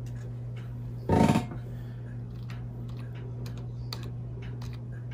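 Keystrokes on a computer keyboard as a password is typed in: a few slow, separate clicks over a steady low hum, with one brief louder noise about a second in.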